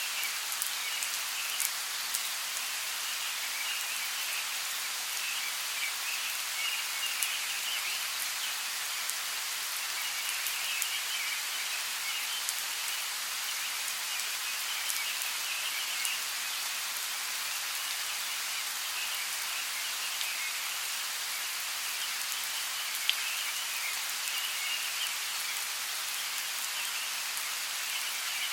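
Steady rainfall in a rainforest, an even hiss scattered with sharp individual drops. A higher chirring comes and goes in the background.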